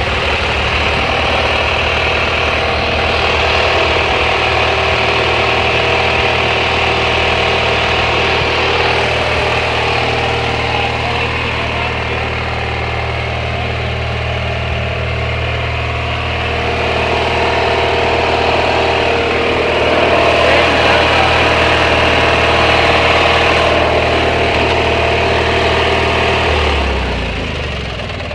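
Riding lawn mower engine idling steadily just after being started, a little louder for a few seconds past the middle, then slowing and dying away as it is shut off near the end.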